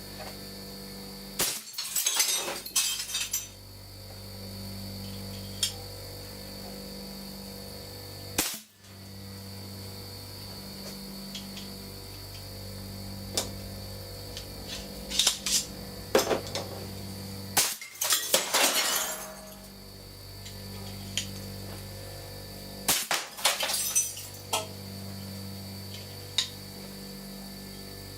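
Homemade compressed-air blow gun firing about four times, each a sharp pop, most followed by a second or so of glass shattering and tinkling as the bullet strikes a glass target. A steady electrical hum runs underneath.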